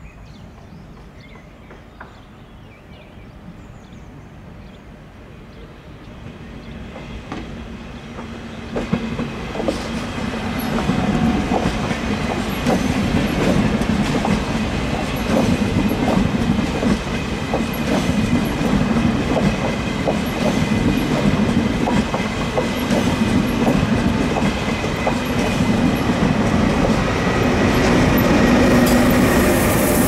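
An ÖBB Railjet train passing at speed, its wheels clicking steadily over the rail joints. The sound swells over the first ten seconds as the train comes close, then stays loud, rising once more near the end as the Taurus electric locomotive at the rear goes by.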